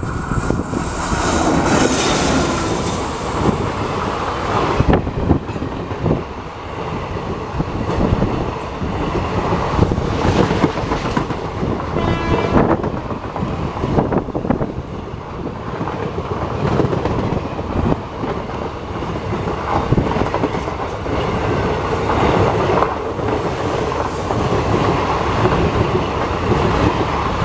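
Indian Railways WAP-4 electric locomotive and its rake of ICF passenger coaches passing close by at speed: a steady rumble with the clickety-clack of wheels over rail joints as the coaches roll past. A horn sounds in the first couple of seconds.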